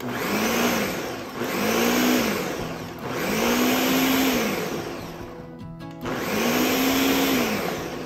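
Ninja countertop blender pulsed four times, its motor spinning up and winding down with each pulse while it blends grated cheese into a creamy sauce.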